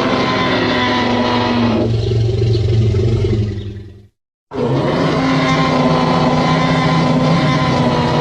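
Tyrannosaurus rex roar sound effect, heard twice: a long, deep, held roar fades out a few seconds in, and after a short silence a second one starts abruptly.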